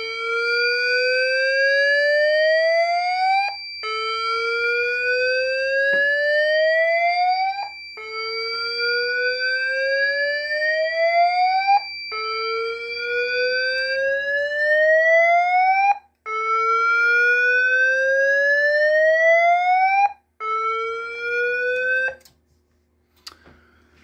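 Siemens MXLV voice fire alarm panel sounding its slow whoop evacuation tone, triggered by a smoke detector in alarm. A tone rises slowly over about four seconds and restarts, five times over, with a steady high beep alongside for the first half. The whoop cuts off partway through a sixth rise when the audibles are silenced.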